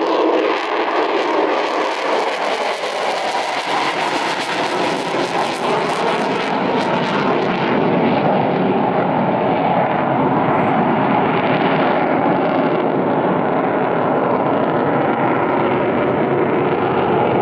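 Avro Vulcan XH558's four Rolls-Royce Olympus turbojets running loud as the delta-wing bomber passes and climbs away; the high hiss in the sound fades about seven seconds in while the deep rumble carries on.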